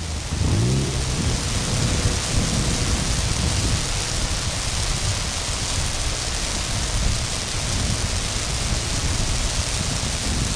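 Wind buffeting the microphone: a steady rumble and hiss. Under it, the half-track snow buggy's engine is faintly heard revving in the first second, then fades as the buggy drives off across the snow.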